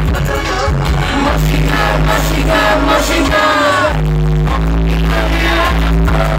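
Live hip-hop/R&B song played through a concert PA: vocals over a heavy, sustained bass backing track.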